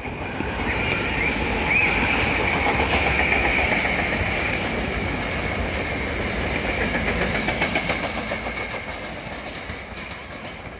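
SEPTA Regional Rail electric train passing at speed, its wheels clattering over the rails with a high steady whine above the rumble. It swells over the first two seconds and fades slowly toward the end.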